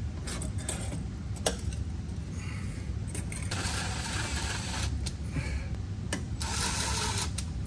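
Cordless power driver with a socket running in two short bursts, a little over a second each, about halfway through and near the end, as it drives the bolts of a shock reservoir bracket. A click comes about a second and a half in.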